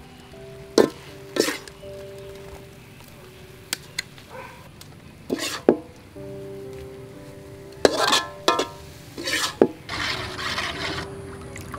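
Metal utensils scraping and clinking on steel cookware: a spatula scraping chili paste off a stainless steamer tray and a ladle stirring runny chili sauce in an aluminium bowl, about eight sharp scrapes and clinks with a wet, swishing stir about ten seconds in. Soft background music plays underneath.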